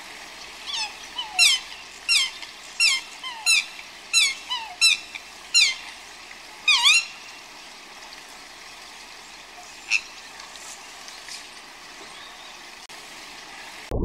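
Swan calling: a quick series of about ten short calls, each falling in pitch, then a lone call a few seconds later.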